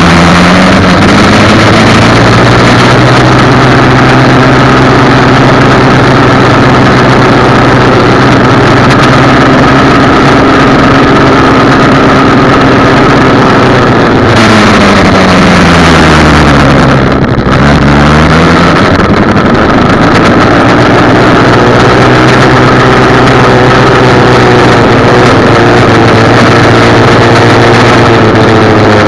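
Dirt bike engine running while riding, recorded very loud. Its note drops steeply about halfway through as the bike slows, then climbs again over the last several seconds.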